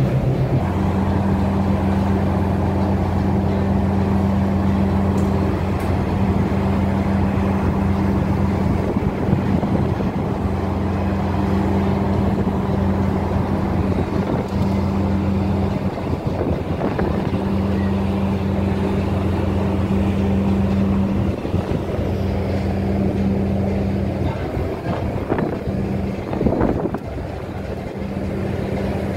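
Steady low drone of a passenger ship's diesel engines, an even hum with a noisy wash over it, with a few brief irregular knocks near the end.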